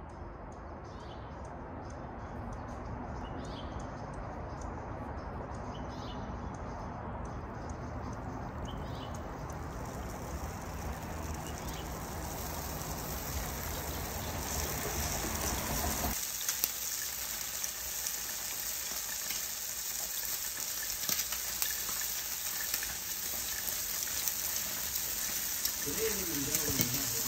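A low, steady outdoor rumble with a few short high chirps, cut off suddenly about sixteen seconds in. Then eggs frying in a pan, a steady high sizzle.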